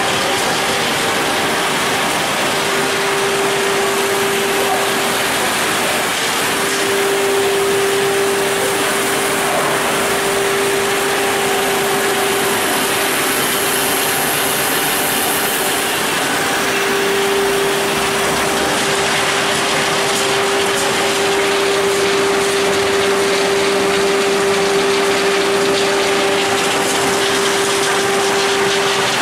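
EPS styrofoam recycling pelletizer line running: extruder, strand cooling trough and strand pelletizer cutter make a loud, steady machine noise. A humming tone runs through it and drops out briefly a few times.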